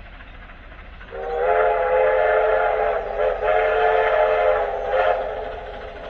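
Train horn sounding a chord of several notes in two long blasts with a brief break between, starting about a second in.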